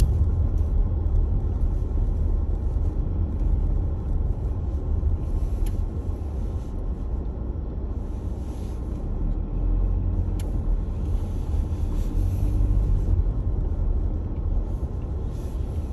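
Steady low rumble of a car on the move heard from inside the cabin: engine and tyre noise, with a few faint clicks.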